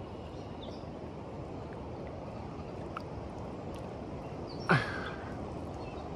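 Steady rush of river water. About three-quarters of the way through, one short, sharp sound drops quickly in pitch.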